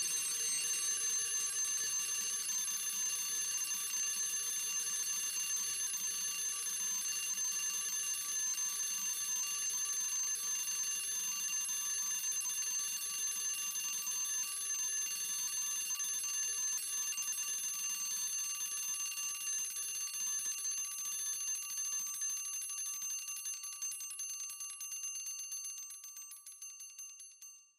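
Mechanical alarm clock's bell ringing continuously as its hammer rattles against it, then running down as the spring unwinds: over the last several seconds the ringing weakens, the single strikes become separately audible, and it stops.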